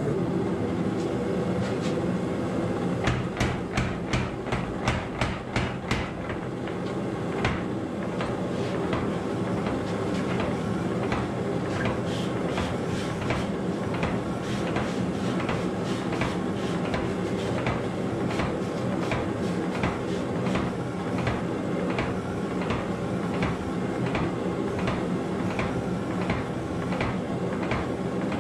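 Hand hammer striking a hot Damascus billet on an anvil to set a forge weld. A quick run of loud blows comes a few seconds in, then lighter, even blows about once or twice a second, over a steady low hum.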